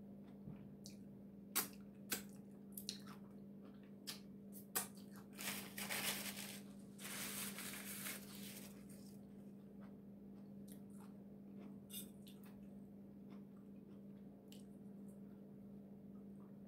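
Dungeness crab legs being cracked and picked apart by hand, with chewing: scattered sharp cracks in the first few seconds, then a longer crackling, tearing stretch of shell being broken open, and a few more cracks later. A steady low hum runs underneath.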